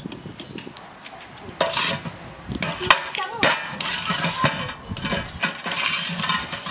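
Lumps of hot charcoal being set with metal tongs onto an aluminium pot lid: irregular clinks, scrapes and knocks of metal and charcoal on the lid, busier in the second half. This is the step of heaping coals on the lid so the cake bakes from above.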